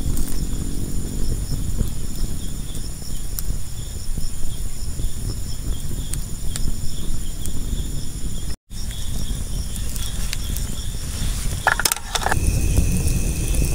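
Insects chirring steadily in the forest over a low rumbling noise. There is a short clatter near the end, after which a new, higher steady chirr joins in.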